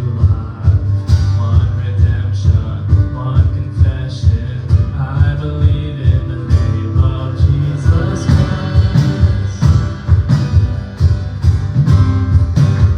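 Worship band music with a heavy bass line, a steady beat, guitar and singing.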